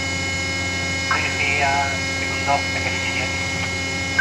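Steady machinery hum made of several fixed tones from the deck crane's running electrical and hydraulic plant, with faint, muffled speech about one to three seconds in.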